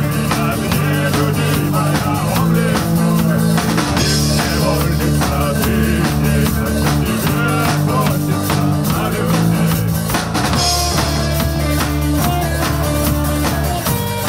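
Rock band playing live: drum kit, bass guitar, electric and acoustic guitars, with a man singing.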